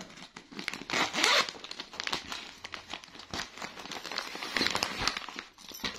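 A clear plastic garment packaging bag being handled and opened, its plastic crinkling and rustling with many small crackles.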